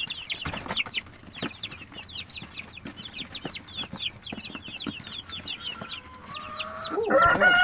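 Young Jersey Giant chickens peeping: a steady run of short, high, falling peeps, several a second. About seven seconds in, a louder, long rooster crow starts.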